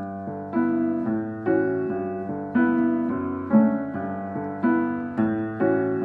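Background piano music: soft chords struck about once a second, each ringing and fading before the next.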